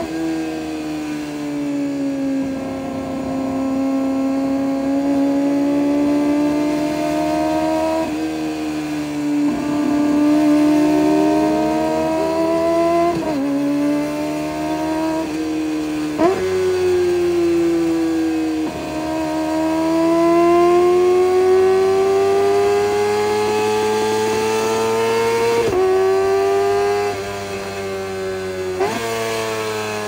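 Kawasaki ZX-25R's 250 cc inline-four running through an aftermarket Orion exhaust while riding, at high revs with the pitch slowly rising and falling. A handful of times the pitch jumps sharply, as with quick gear changes and throttle blips.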